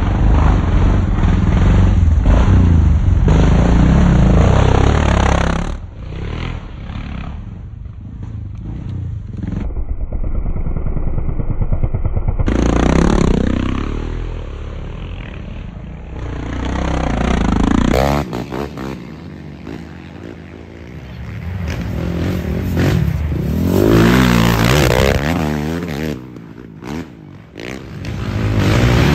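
Racing quad (ATV) engines revving hard as riders pass one after another on a dirt track, the engine note rising and falling as the throttle opens and closes. It is loudest in the first few seconds, again about halfway, and near the end.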